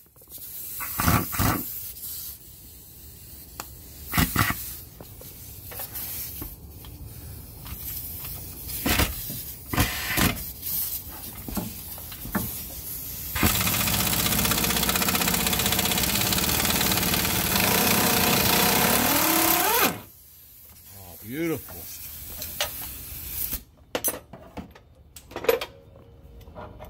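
Air impact wrench undoing the nut on a BMW E46 differential's rear mounting bolt: several short bursts, then a steady run of about six seconds that rises in pitch just before it stops as the nut spins free. Metal clinks of the tools follow.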